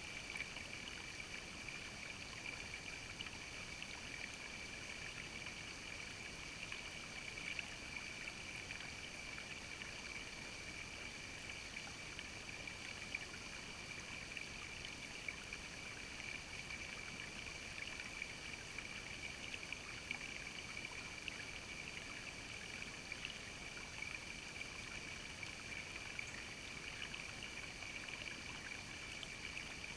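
Shallow creek water babbling and trickling over rocks, a steady wash with many small splashy ticks.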